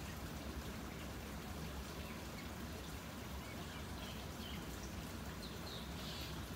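Steady low background hiss with a faint hum: quiet room tone. A few faint, short high chirps come about four to six seconds in.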